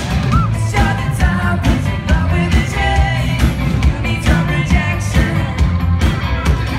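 Live pop-rock band playing: a male lead vocal sung into a handheld mic over electric guitar and drums with a steady beat.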